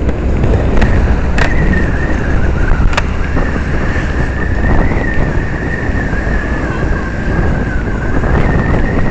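Wind rushing over the microphone of a camera on a moving motorcycle, with a steady low rumble of road and traffic noise. A thin high whine wavers slightly in pitch throughout, and two sharp clicks come about 1.5 and 3 seconds in.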